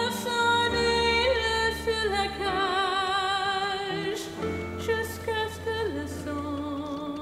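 Soundtrack music: a song sung in French, with a singer holding long notes with vibrato over sustained low accompaniment.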